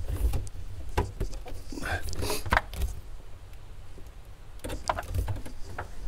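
Handling noise from a phone camera being moved and set down inside a car: scattered knocks, clicks and rustles.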